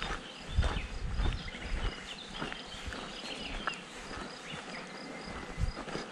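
A hiker's footsteps on a dirt path through grass, with birdsong and a high chirp repeated evenly about four times a second.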